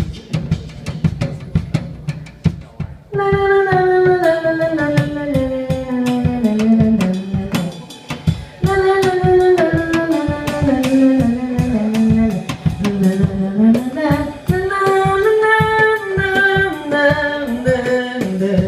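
Drum kit playing a beat alone, then about three seconds in women's voices come in singing long held notes that step downward over the drums, in three phrases.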